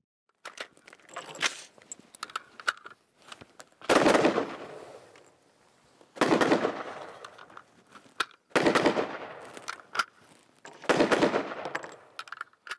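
AR-15 rifle fired from the standing position: four loud bursts of fire about two and a half seconds apart, each trailing off over a second or so. Light clicks and shuffles come between them.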